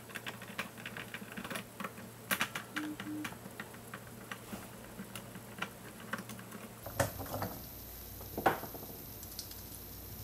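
Small irregular clicks and ticks of a screwdriver backing screws out of a robot vacuum's plastic chassis. A couple of louder scraping knocks come about seven and eight and a half seconds in, as the side brush motor is worked loose and lifted out.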